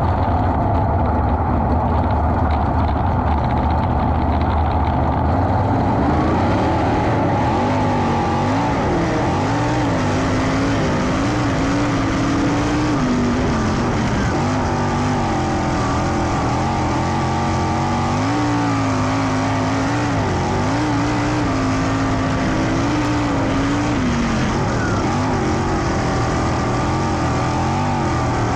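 A sprint car's V8 engine at racing speed, close up. It is a lower, steadier drone for the first several seconds, then rises and falls in pitch again and again as the throttle is worked.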